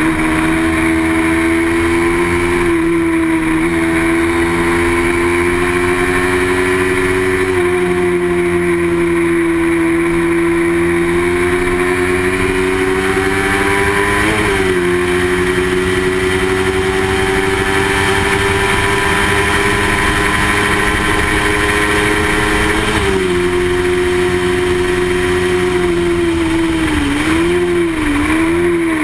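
Small-displacement racing motorcycle engine running hard and steady, its pitch climbing slowly and dropping sharply a few times as it shifts gear, then wavering up and down near the end.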